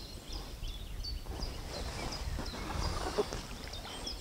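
Small birds chirping in short repeated notes. A noisy rustle swells about a second in and fades before the end.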